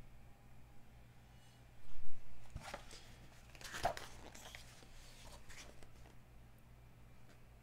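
Glossy magazine pages being turned by hand: a few crisp paper rustles and swishes in the first half, over a faint steady hum.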